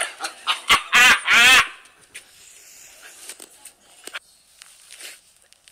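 Two loud, wavering shouts from a man's voice about a second in, followed by faint scattered knocks and handling noise.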